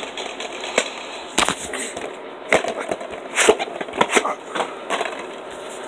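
A DVD case and its packaging being handled: a series of sharp clicks and taps with rustling between them.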